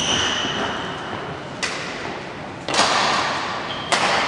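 Four sharp knocks about a second apart, each echoing in a large hall, over a steady background of hall noise.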